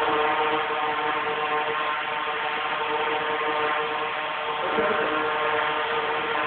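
Quadcopter's four motors and propellers running with a steady, many-toned whir, the pitch wavering briefly about five seconds in.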